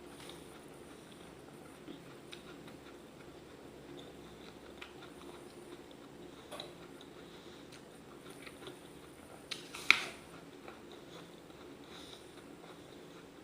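Raw apple being chewed close to the microphone, with small crisp crunches scattered throughout and one loud, sharp crunch about ten seconds in.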